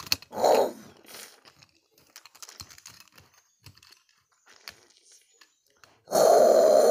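Plastic toy tiger and leopard figurines clicking and tapping against each other in a play fight. Two loud, rough growling roars are made by a child's mouth: a short one near the start and a longer one about six seconds in.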